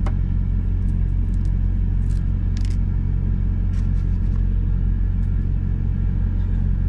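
Steady low drone of a semi truck's diesel engine idling, heard inside the cab, with faint scattered crackles of eggshell being peeled off a hard-boiled egg by hand.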